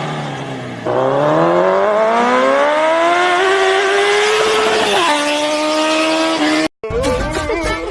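An engine revving: the pitch dips, then climbs steadily for about three seconds, drops at once to a steady lower note about five seconds in, and cuts off suddenly. Music begins right after.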